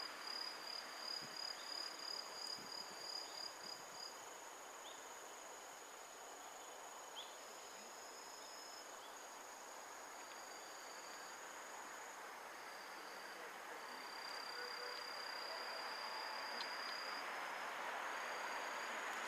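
Insects chirping: several thin, steady high trills, one of them pulsing during the first few seconds. A rushing hiss of noise grows steadily louder through the second half.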